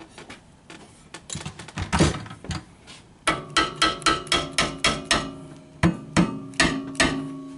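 Rubber mallet striking the metal frame and sling rail of a sling bar stool. A few single knocks come first, then a quick run of taps, about three or four a second, from about three seconds in, each leaving a short metallic ring.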